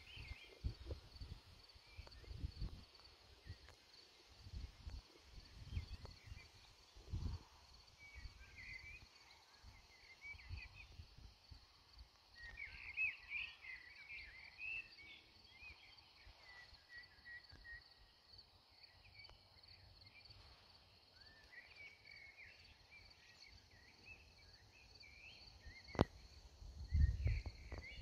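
Outdoor ambience: birds chirping on and off over a steady high insect trill, with low wind and handling rumbles on the microphone. There is a single sharp click about two seconds before the end.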